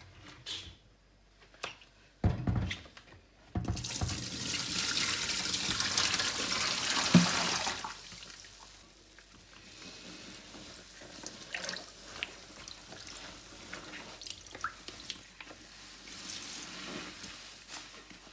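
A few knocks, then water running steadily for about four seconds. After that comes a quieter wet crackling with small clicks from a soapy sponge soaked in floor-cleaner suds.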